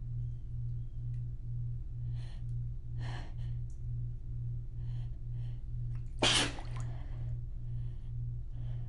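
A woman's single sharp sneeze about six seconds in, during a sneezing fit. Before it come quieter breaths and a stronger inhale about three seconds in. A low hum pulsing about twice a second runs underneath.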